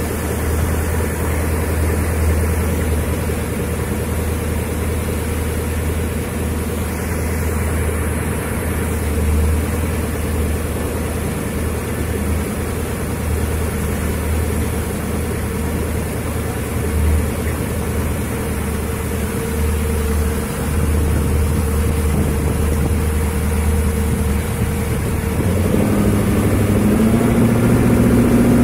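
Water-jet boat's inboard engine running steadily at low speed, then revving up near the end, its pitch rising as it gains power.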